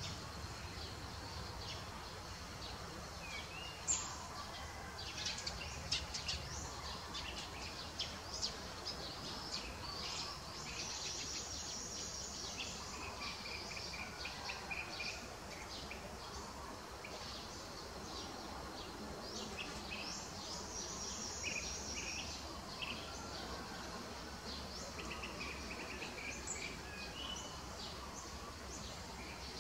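Small birds chirping and calling, with two stretches of rapid high trills, over a steady low background rumble. A few sharp clicks stand out in the first half, the loudest about four seconds in.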